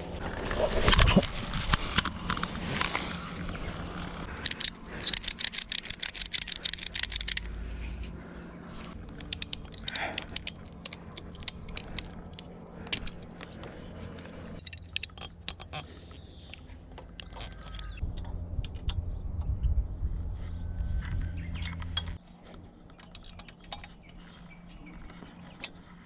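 Clattering and clicking of gear being handled and fitted together, with a fast rattling run of clicks a few seconds in, over a low steady hum that cuts off near the end.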